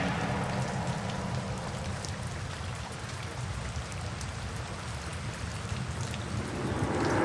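Steady rain falling, an even patter over a low rumble. Background music fades out right at the start and begins to swell back in near the end.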